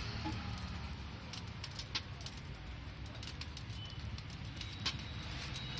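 A wood fire under a griddle stove crackling, with irregular sharp pops and clicks over a steady low rumble; the strongest pops come about two seconds in and near the end. Steel plates being handled may add some of the clinks.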